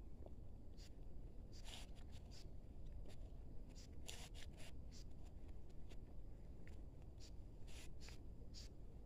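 Rubber-gloved hands pressing and firming potting soil around a plant's stems in a small plastic pot: soft, short scratchy rustles, one every second or two.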